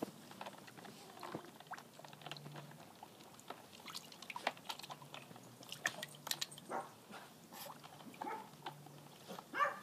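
Boston Terrier puppy in a tub of ice water, biting at ice cubes: water sloshing, and ice cubes clicking and crunching in rapid irregular knocks. A few short high puppy cries come in the second half, the loudest near the end.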